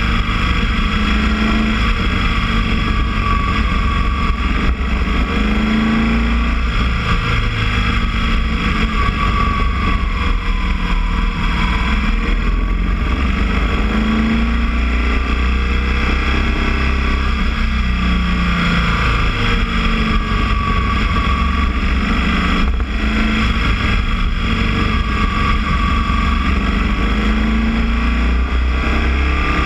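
Boxer-twin motorcycle engine running while riding, its pitch rising and falling again and again with throttle and gear changes.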